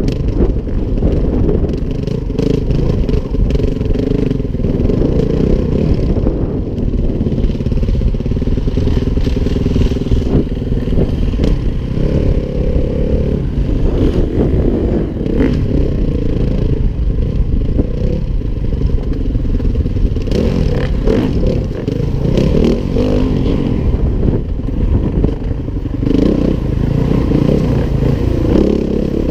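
Yamaha WR-F four-stroke single-cylinder enduro bike engine heard from the rider's helmet, revving up and down over rough trail, with clattering knocks from the chassis and stones.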